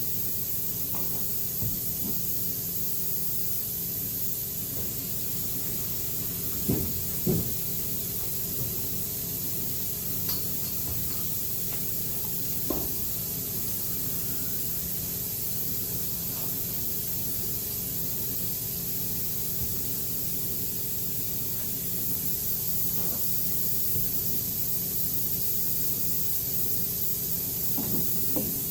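Steady background hiss with a faint low hum, broken by a few light clicks and knocks, twice close together about seven seconds in and once more a few seconds later.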